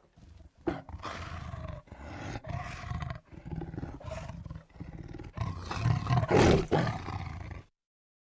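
Lion roaring and snarling angrily in a run of about six separate growls. The loudest roar comes near the end, and the sound then cuts off suddenly.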